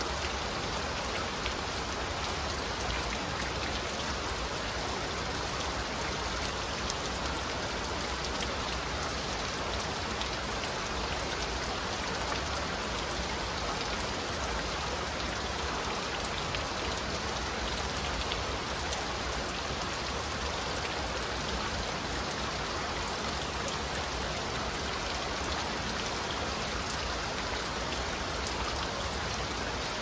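Steady flowing water with a dense, constant patter of falling drops, even and unchanging throughout.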